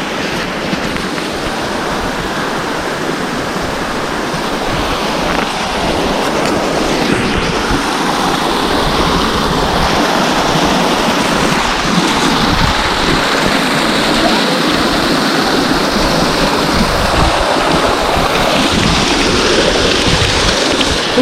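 Waterfall rushing steadily, growing gradually louder, with wind buffeting the microphone.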